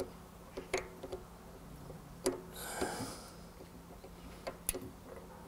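A few light, sharp clicks of steel bicycle cassette sprockets being handled and slid onto a freehub body, spread out over several seconds.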